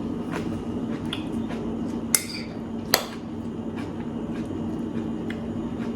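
A utensil clinking against a dish twice, sharply, with a brief ring after the first strike, amid small scattered clicks over a steady room hum.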